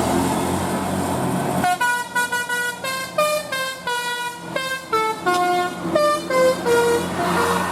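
A bus's telolet horn, a set of musical air horns, playing a quick tune of held notes that step up and down in pitch, starting about two seconds in over a steady vehicle-engine background.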